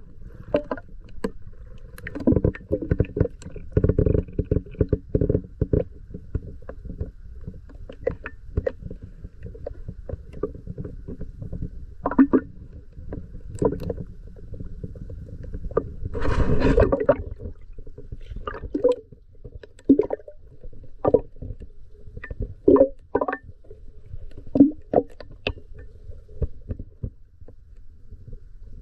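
Muffled water heard through an underwater camera housing just below the surface: sloshing and gurgling with many scattered knocks and clicks, and a longer, louder rush of water about sixteen seconds in.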